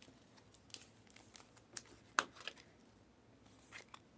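Faint rustling and crinkling with scattered light clicks, the sharpest about two seconds in, as trading cards and their plastic sleeves and wrappers are handled.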